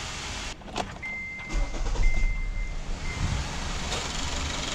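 A 2014 Kia Forte's 2.0L GDI four-cylinder engine being started: a few clicks, a high electronic beep for about two seconds, then the engine catches about a second and a half in and runs at idle. The idle is rough from a hard misfire on cylinder 1.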